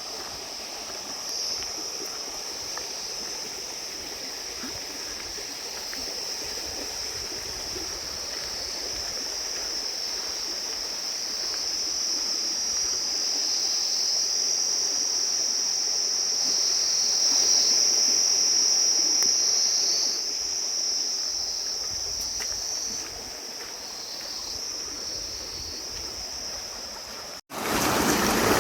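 Outdoor ambience: a steady, high-pitched insect drone that swells and eases over a low rushing hiss. Near the end it cuts off abruptly and a louder rushing noise takes over.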